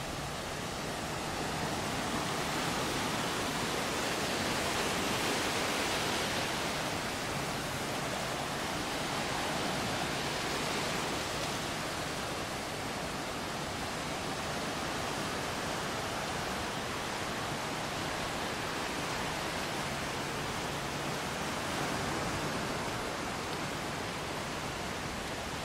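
Ocean surf washing onto a sandy beach, a steady roar of breaking waves that swells and fades as each wave comes in.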